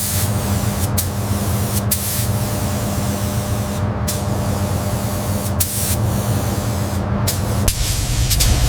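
Hissing spray in short repeated bursts over a steady mechanical hum; the hum cuts off near the end.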